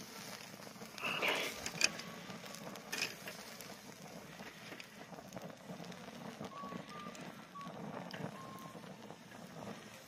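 Wood fire crackling under a wire grill, with metal tongs clicking against the grill as sausages are turned; the sharpest clicks come about two and three seconds in.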